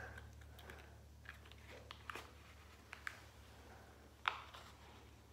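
Faint handling of packaging being opened: scattered soft clicks and crinkles, with one sharper click about four seconds in, over a low steady hum.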